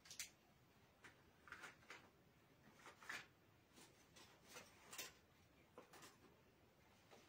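Marker pen writing on a whiteboard: faint, short squeaks and scrapes, about a dozen irregular strokes as letters are drawn.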